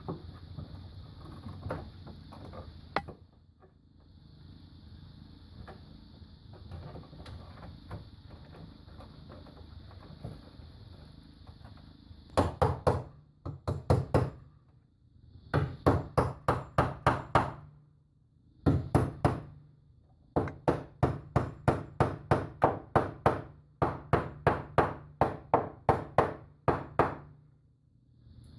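Repeated rapid hammering: runs of sharp, evenly spaced knocks, about five a second, in bursts of a few seconds with short pauses between, starting about twelve seconds in. Before that there is only a faint steady hiss.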